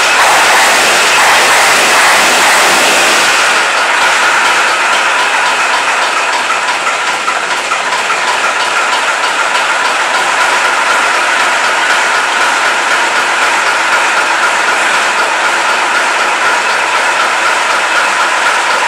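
Praga S5T truck's diesel engine running after a cold start, louder for the first few seconds, then settling to a steady run.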